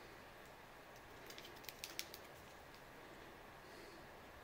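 A quick run of light plastic clicks and taps from handling a desk lamp's power cord with its inline switch and plug, about half a dozen in the middle of an otherwise near-silent stretch.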